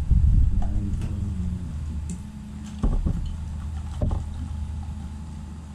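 A steady low rumble in the background, with a few sharp clicks and clinks of a bottle, cup and plate being handled on a table.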